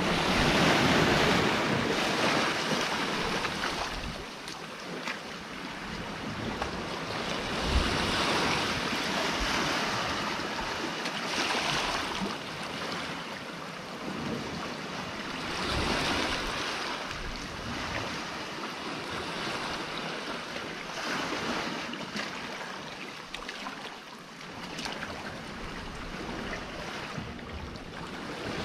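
Sea surf washing and foaming around rocks, swelling and falling back every few seconds, with wind rumbling on the microphone.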